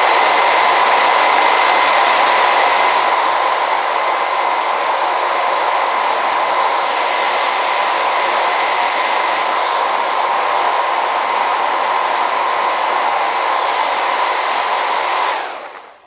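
BaByliss 3Q hair dryer running on its middle power setting with its casing partly dismantled: steadily rushing air with a high motor whine. It stops about a second before the end, dying away quickly.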